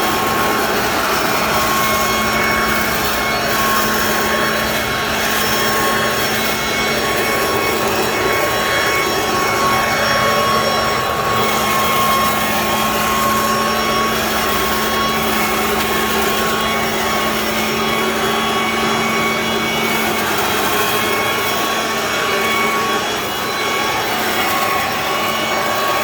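Garden vacuum running steadily at full speed: a steady high whine over a rushing of air.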